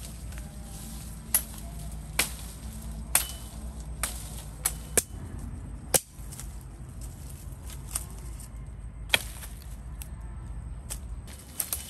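Chopping wood with a blade: about a dozen sharp strikes at an uneven pace, some close together, others a second or more apart.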